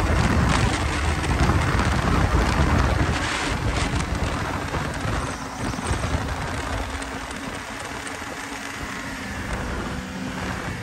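Wind rushing over the microphone of a moving snowmobile, with the sled's engine running underneath. About halfway through the rush dies down, leaving a quieter, steady low engine hum.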